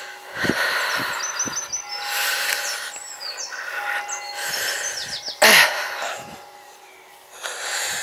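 Small birds chirping in short rising notes over a steady outdoor hiss, with a few soft footsteps at first and a brief loud rush of air noise on the microphone about halfway through.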